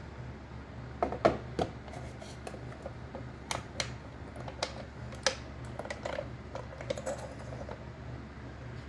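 A run of irregular light clicks and taps, the loudest about a second in, over a steady low hum.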